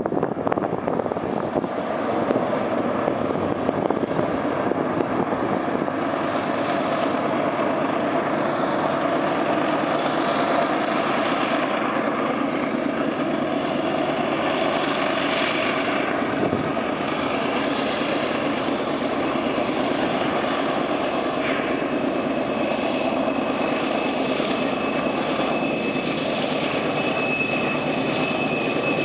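GE AC4400CW diesel-electric locomotives with 16-cylinder engines working hard as they haul an empty coal train up a steep grade, a steady heavy drone and rumble that grows as the train approaches. A steady high tone joins about three-quarters of the way through.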